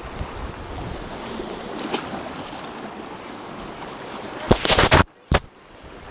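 Sea surf washing against the shore, with wind on the microphone. A brief louder rush comes about four and a half seconds in, then the sound drops off sharply.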